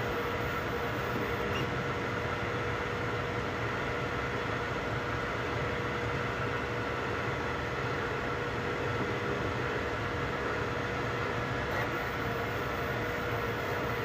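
3D printers running: a steady mechanical hum of fans and motors with a constant tone through it.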